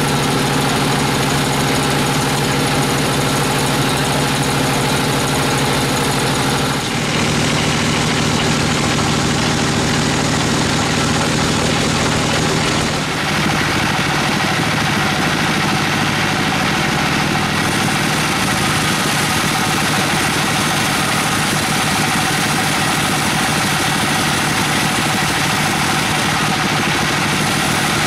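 Bandsaw mill running with a steady machine drone. After about thirteen seconds it turns noisier as the band blade saws lengthwise through an Albizia procera (white siris) log.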